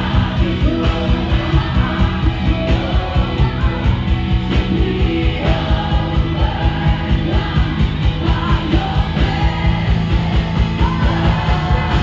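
Live worship band playing an upbeat song with singers over the PA, with a fast, steady drum beat.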